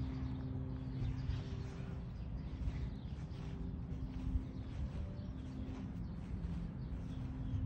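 Outdoor background sound: a steady low hum with a low rumble under it, and faint bird chirps now and then.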